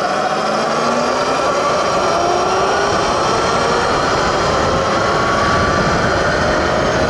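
A 72-volt Sur-Ron electric dirt bike's motor whining under hard acceleration, its pitch climbing steadily, over a steady rush of wind noise.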